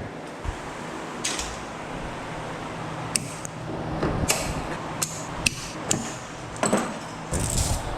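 Heavy-gauge number 2 wire being pulled out of a metal equipment cabinet, creaking and rubbing as it drags, with scattered clicks and knocks over a steady low hum.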